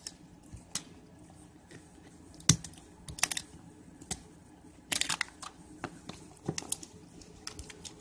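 Fingers picking at and peeling the tamper-seal stickers off a smartphone's cardboard box and handling the box. Scattered sharp clicks and scratches, with a quick cluster of them about five seconds in.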